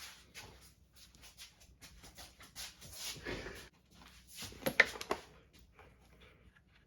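Rustling and scraping of a full-face motorcycle helmet being handled and worn, with a few sharp clicks about four and a half to five seconds in.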